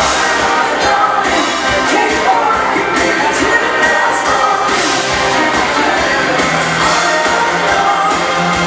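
Live dance band playing a bugg number, with a sung vocal over the band.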